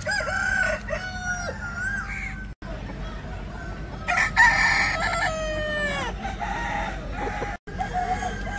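Several different roosters crowing one after another, each crow cut off abruptly by a splice. The loudest, longest crow comes about four seconds in and lasts about two seconds, its end drawn out and falling in pitch.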